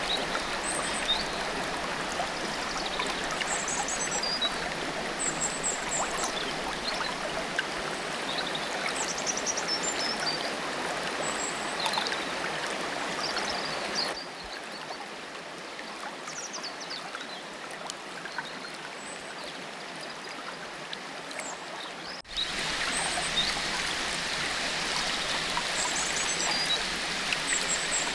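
Steady rush of a forest stream or small waterfall, with songbirds giving short high chirps over it every few seconds. The water drops quieter about halfway through, then comes back louder suddenly near the end.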